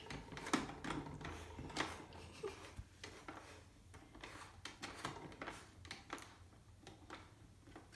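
Faint, scattered clicks and taps from a toy cash register being handled while its receipt is taken.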